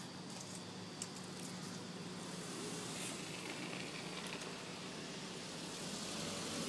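Audi S8's V10 engine idling steadily, a low even hum, with handling and wind noise on the microphone and a single click about a second in.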